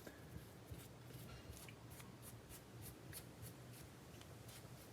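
Faint, scattered light clicks and ticks of small metal parts from handling a Mul-T-Lock Junior dimple lock while taking it apart, over a low steady hum.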